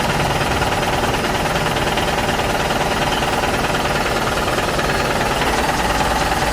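Small electric motor and gearbox of a toy RC construction vehicle running, a steady rattling buzz.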